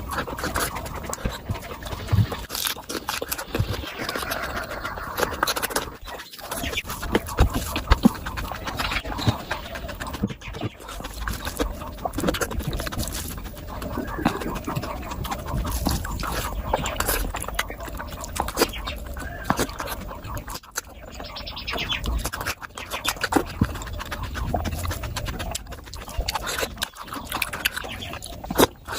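Close-miked eating: repeated wet chewing, lip smacks and mouth clicks from eating spicy mutton fat curry with rice.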